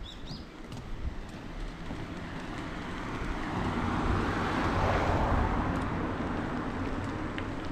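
A car passing on the adjacent road: engine and tyre noise swells to a peak about five seconds in, then fades.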